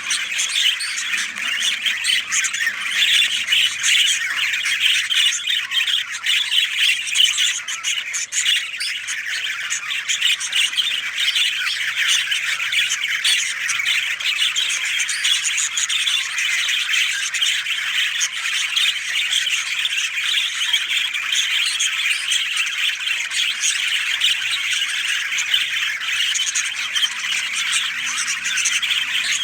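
Many birds chattering and squawking together in a dense, unbroken chorus.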